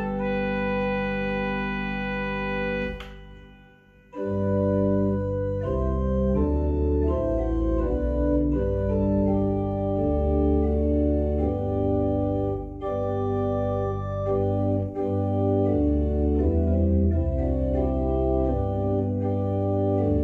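Organ playing a hymn on the manuals with a deep pedal bass. A held chord ends about three seconds in with a short click and a brief pause, then a new phrase begins and moves through changing chords.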